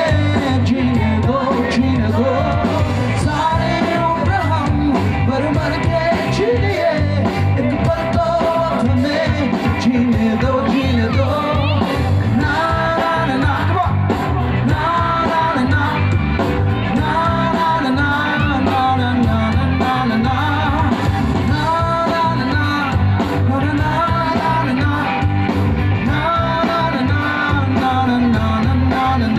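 Loud recorded music with a sung vocal melody over a steady beat and heavy bass.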